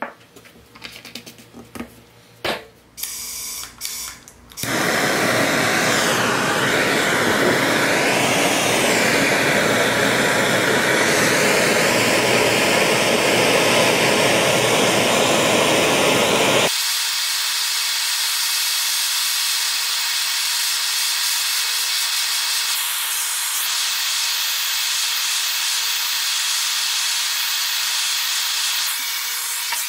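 Handheld gas torch: a few light clicks of handling, then about four and a half seconds in the flame comes on with a loud, steady hiss as it plays on a small steel axle pin. About twelve seconds later the hiss abruptly turns thinner and higher and carries on that way.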